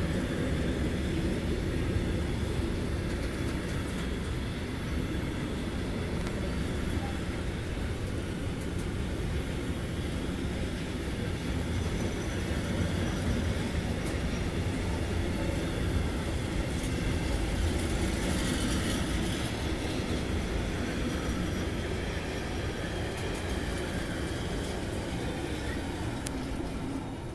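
Intermodal freight train of pocket wagons loaded with semi-trailers rolling slowly past, a steady rumble of wheels on the rails. It dies away near the end as the last wagon goes by.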